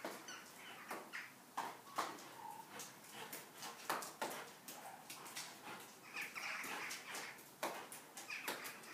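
Doberman snapping its jaws at falling snow: irregular sharp clicks as its teeth close, one to three a second.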